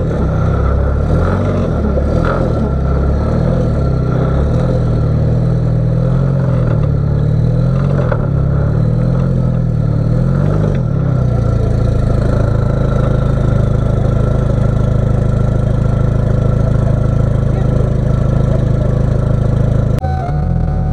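Rock-crawler buggy's GM Ecotec engine, revs rising and falling under load for about the first half, then held at a steady speed.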